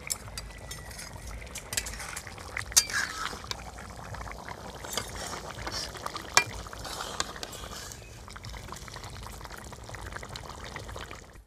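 A flat metal spatula stirring a bubbling fish and spinach curry in a metal wok, scraping and clinking against the pan while the thick liquid sloshes. The two loudest clinks come about three and six seconds in.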